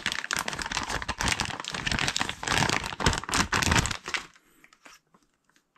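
Clear plastic bag crinkling and rustling as a diving mask is pulled out of it, stopping about four seconds in, followed by a few faint clicks.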